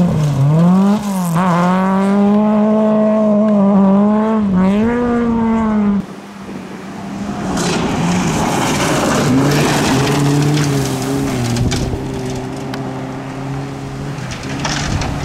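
Volvo 240 rally cars driven hard on gravel. For the first six seconds one engine revs up and drops back several times through gear changes as the car slides through a bend. After a sudden cut a second car is heard coming up a gravel road, its engine note lower and steadier, with the noise of gravel under the tyres.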